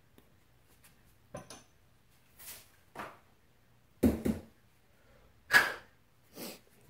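Scattered handling noises: a few short knocks, clicks and rustles as shotgun shells and small parts are picked up and set down on the bench. The heaviest knock comes about four seconds in and the loudest rustle at about five and a half seconds.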